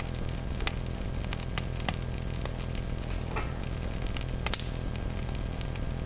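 Wood fire burning in a steel-drum smokeless burn barrel, crackling with scattered pops over a steady low rumble. One louder pop comes about four and a half seconds in, and the sound cuts off suddenly at the end.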